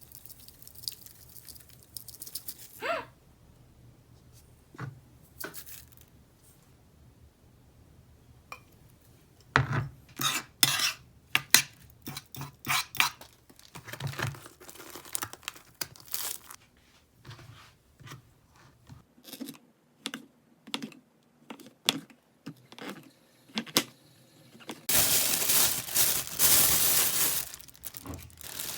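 Household handling sounds: plastic packaging crinkling and tearing, with light clinks of dishes and utensils, busiest about ten to seventeen seconds in. A steady hiss starts about twenty-five seconds in and runs for a few seconds.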